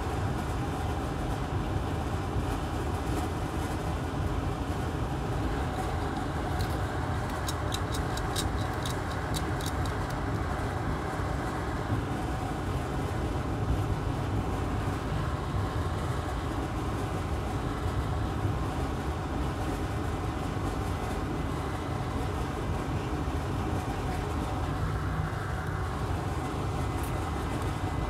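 Bench fume extractor fan running steadily, a constant fan noise with a faint hum. A short run of faint ticks comes about seven to ten seconds in.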